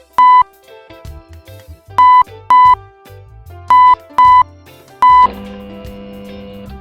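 Six short, loud electronic beeps on one high pitch over background music, one then two pairs then one more, spread over about five seconds.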